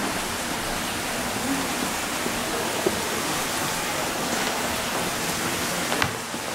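Steady, even hiss of indoor lobby ambience, with faint distant voices and a couple of short knocks from footsteps on the stairs and floor about three and six seconds in.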